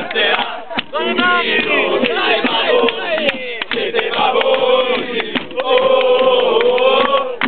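A crowd of male ultras supporters singing a chant together in loud unison inside a coach, with a few sharp claps or knocks among the voices.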